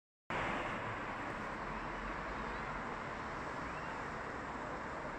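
Steady hubbub of a large outdoor crowd heard from a distance, many voices blending into one murmur with no single words standing out.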